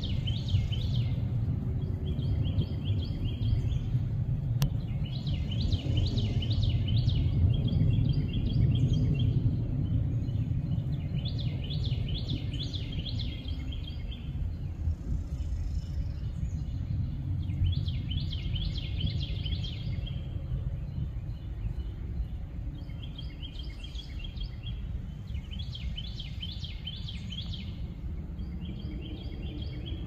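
A songbird singing short, rapid trilled phrases, about nine of them with gaps of a second or two, over a steady low rumble.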